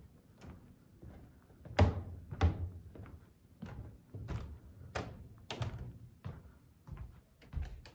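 Footsteps thudding in a steady walking rhythm, about one and a half steps a second, with two louder thumps about two seconds in.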